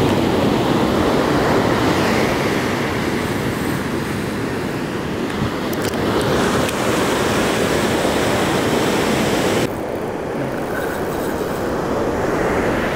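Surf breaking and washing up a sandy beach, a steady loud rush of waves; its higher hiss drops suddenly about ten seconds in.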